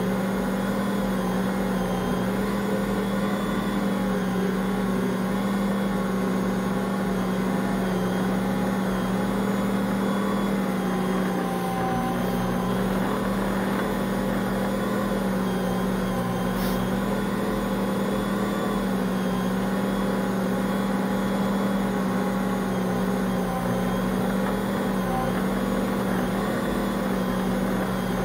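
Ankarsrum stand mixer running steadily, its motor turning the stainless bowl while the roller arm kneads whole-wheat bread dough: an even, unchanging hum.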